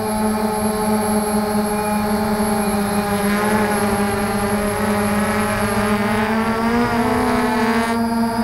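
Quadcopter drone's motors and propellers buzzing steadily, heard from a camera mounted on the drone itself, the pitch wavering slightly as it manoeuvres. A faint, steady high whine runs alongside.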